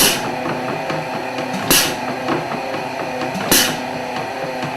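Grout pump working strokes while filling a cable bolt with grout, each stroke marked by a sharp hiss, three strokes about 1.8 s apart over a steady running drone.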